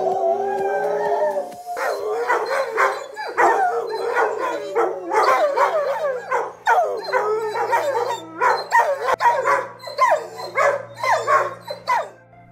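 A Rottweiler howling: one long held howl, then a quick run of short howls and yips that rise and fall in pitch, over background music with steady low notes.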